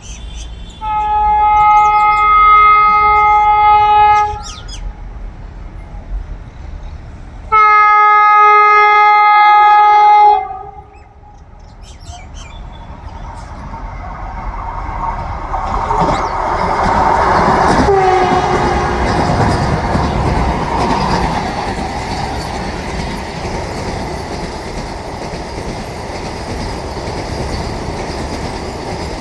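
Vande Bharat Express electric trainset sounding two long horn blasts, each about three seconds, then rushing past at speed. The rolling and wheel noise builds to a peak about halfway through, where a brief tone drops in pitch as the train goes by, and the clickety-clack of the coaches carries on steadily after.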